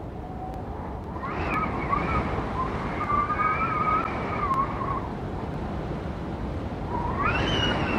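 Strong wind buffeting the microphone with a rushing roar, and a howling whistle that wavers up and down in pitch, rising about a second in, fading near 5 s and returning near the end.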